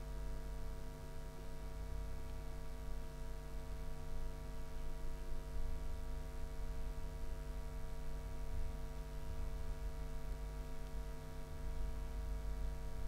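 Steady electrical hum, several fixed tones at once over a low rumble, with nothing else happening.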